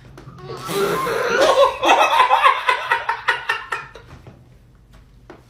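A woman laughing hard in rapid pulses. The laughter builds about half a second in and dies away at about four seconds.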